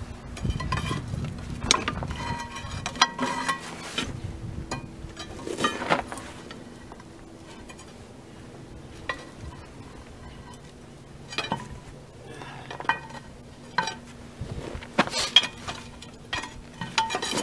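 Steel pry bar levering and knocking against the rusted cylinder head cover of a 1937 Porter 0-4-0T steam locomotive, working it loose. Irregular metal clinks and scrapes, some with a brief ring, come thickest near the end.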